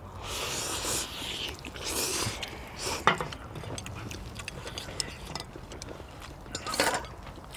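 People eating ramen noodles from a spicy pork neck-bone stew: noisy noodle slurps about half a second in, again near two seconds and near the end, with small chewing smacks and clicks between them.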